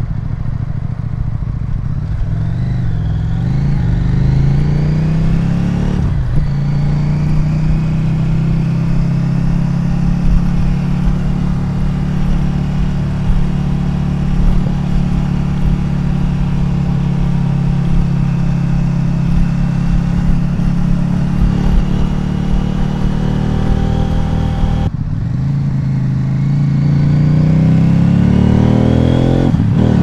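CFMOTO Ibex 800T's parallel-twin engine running through a Leo Vince slip-on exhaust with the baffle removed. It pulls with rising pitch, breaks off briefly about six seconds in as for a gear change, then holds a steady cruise. About 25 s in it backs off and then revs up again with a rising pitch.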